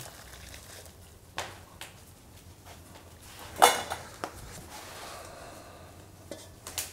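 Metal kitchenware clinking and knocking as jus is strained from a pan through a sieve: a few short sharp knocks, the loudest about halfway through.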